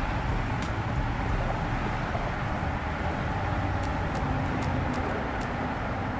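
Steady wind rumble on the microphone, with a few faint, sharp clicks scattered through, several of them close together near the end.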